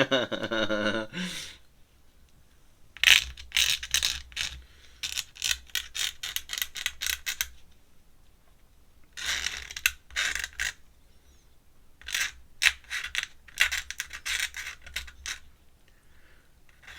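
Ink pen nib scratching on paper in bursts of quick short strokes, with pauses between the bursts.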